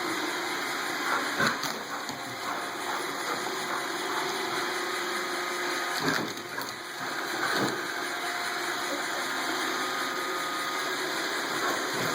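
iRobot Roomba 770 robot vacuum running steadily, with three short knocks about one and a half, six and seven and a half seconds in.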